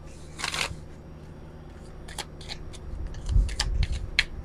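Oracle card deck being shuffled by hand: a short riffling burst early, then a run of quick card clicks and snaps from about two seconds in, with a low handling bump among them.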